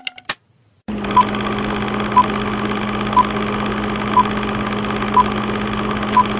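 Old-film countdown leader sound effect: a steady film-projector whirr with a low hum, starting about a second in, and a short beep once a second marking each number.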